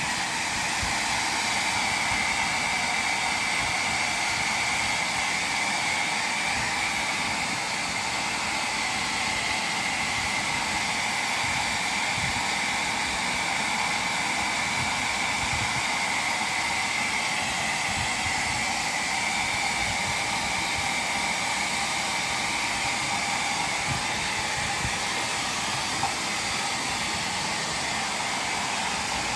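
Hair dryer running steadily: a continuous blowing hiss with a faint steady high whine.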